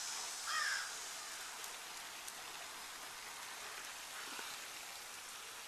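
Steady soft hiss, with a short high chirp about half a second in.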